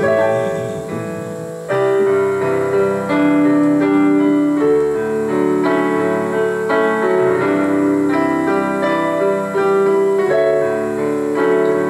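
Casio digital piano playing a slow instrumental passage of held chords, a new chord struck every second or two.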